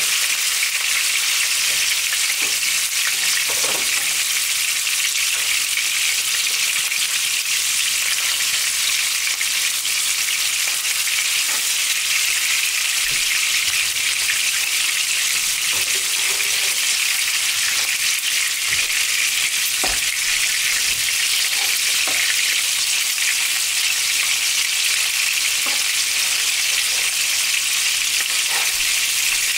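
Ground-beef seekh kebabs sizzling steadily as they fry in a little oil over medium heat, with a few light taps now and then.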